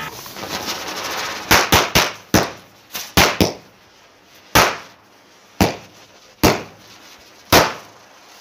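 Firecracker going off on the ground: a short crackling hiss as it burns, then about eleven sharp bangs, several in quick succession at first and then spaced about a second apart.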